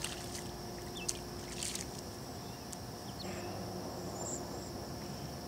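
Quiet riverside ambience with a steady faint hiss and a few soft water splashes and small clicks from wading and handling a freshly landed smallmouth bass.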